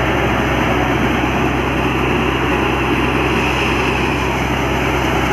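S Kumar wheat thresher running steadily while threshing pigeon peas: an even mechanical rushing noise over a steady low hum.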